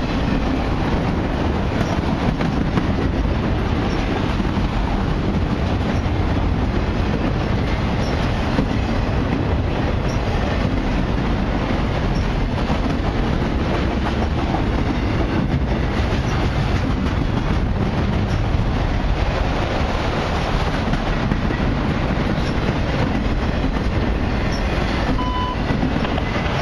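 Autorack and mixed freight cars of a long freight train rolling past close by: a steady rumble of steel wheels on rail, with the clatter of wheels over the track.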